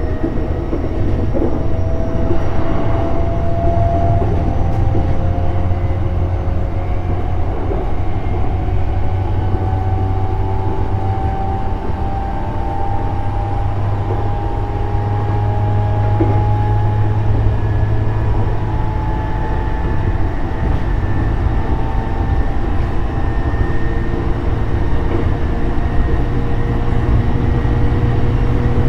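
JR East E531 series electric train running, heard from on board: several thin motor tones slowly rise in pitch as speed builds, over a steady low rumble of wheels on rail.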